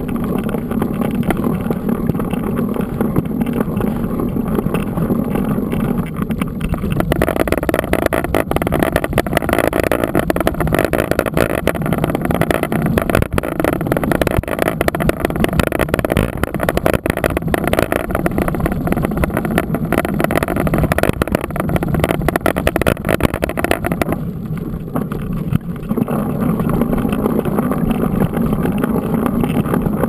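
Mountain bike riding fast over a rough dirt road, heard from a camera mounted on the bike: a steady rumble of wind on the microphone and tyres on loose dirt, with constant small knocks and rattles from the bumps. It briefly quietens about 24 seconds in.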